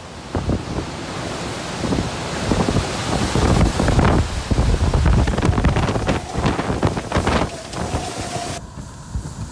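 Hurricane-force wind gusting hard, buffeting the microphone, with wind-driven rain. The gusts build about two seconds in and stay strong, then the sound drops away sharply near the end.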